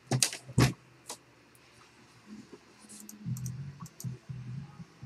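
Computer mouse clicking: a few sharp clicks in the first second, then fainter scattered clicks about three to four seconds in.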